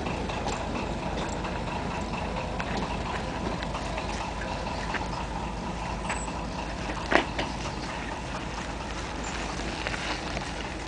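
A narrow-gauge diesel locomotive runs in the distance as it pulls its train away, a steady low rumble. Over it are footsteps and camera-handling noise in many small ticks, and one sharp click just after seven seconds in is the loudest sound.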